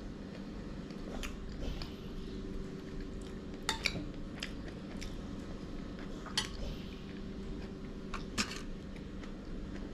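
A few separate sharp clicks and light taps as small things are handled on a table, over a steady low hum.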